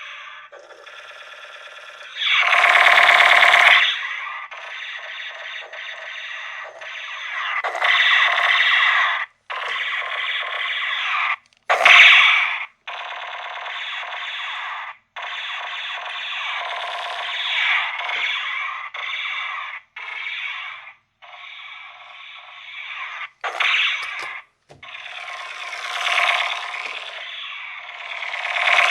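A string of battery-powered toy gun effects: electronic buzzing, rattling bursts and pulsing laser-style tones, one after another with short gaps, the loudest blasts about three seconds in and again around twelve seconds in.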